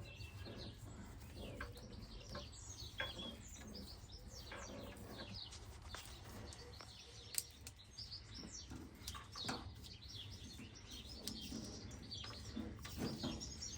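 Small birds chirping over a low background hum, with a few light clicks and knocks, the sharpest about halfway through.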